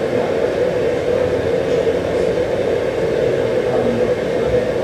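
Courtroom white-noise masking system running during a bench conference: a steady rushing hiss with a strong droning band in the middle.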